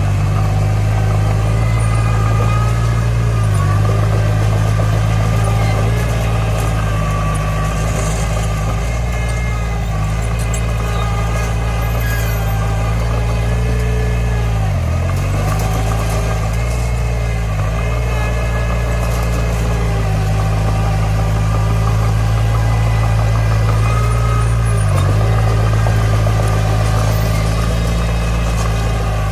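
Komatsu D20 bulldozer's diesel engine running steadily, its pitch dipping briefly four times.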